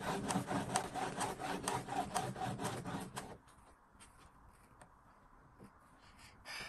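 A baby scraping its teeth back and forth on the top edge of a plastic playpen panel: a rhythmic rasping, about four strokes a second, that stops a little past three seconds in. A brief scrape comes again near the end.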